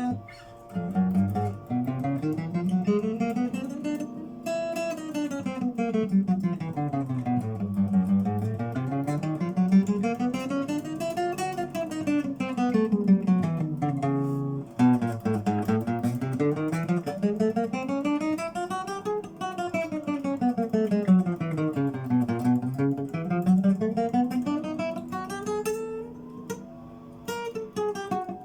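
Soviet Lunacharsky-factory Ovation-style acoustic guitar with a solid top being played as a sound check. Plucked notes run up and down the neck in repeated rising and falling runs.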